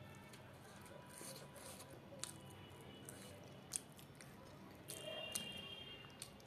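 Quiet chewing of a samosa, with three sharp clicks standing out about two, four and five and a half seconds in.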